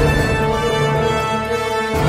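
Theme music for the closing credits: held orchestral chords with a new stroke at the start and another near the end.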